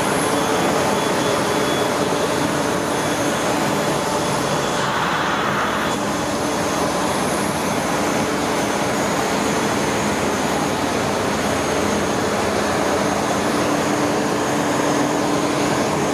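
Steady, loud rush and whine of jet aircraft machinery on the apron. Several steady high tones sit over a broad, even noise that does not let up.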